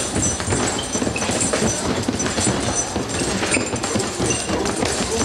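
Several boxers punching heavy bags and other gym apparatus: a dense, irregular patter of overlapping thuds from gloved blows.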